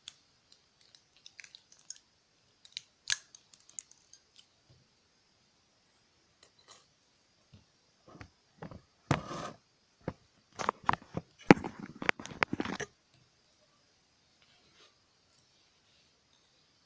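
Small hand tools clicking and prying at a wristwatch movement as it is taken apart. About eight seconds in comes a dense run of crunching and snapping that lasts several seconds.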